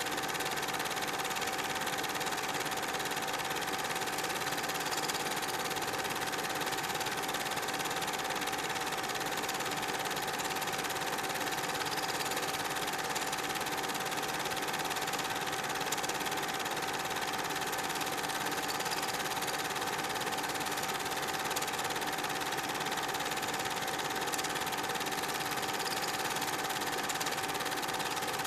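Super 8 film projector running: a steady mechanical whir with a constant hum-like tone.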